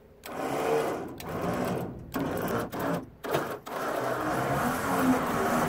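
Electric trailer winch motor running off a car battery, jogged on and off in several short starts, then run steadily as it drags a log in on its cable.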